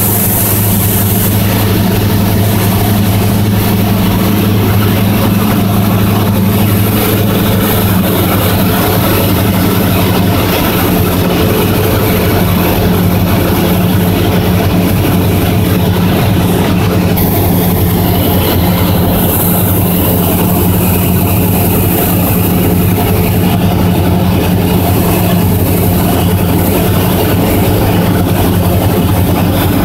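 Cessna 172's piston engine and propeller droning at a steady pitch, heard from inside the cockpit, with a hiss of air over it.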